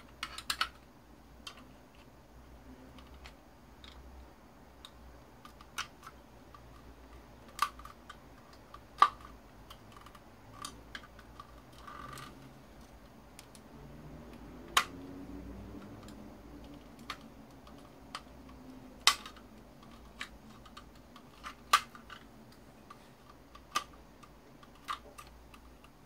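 Scattered sharp clicks and taps of hand tools against the small plastic and metal parts of a cordless stick vacuum's motor unit as it is taken apart, irregular, with a few louder knocks among them.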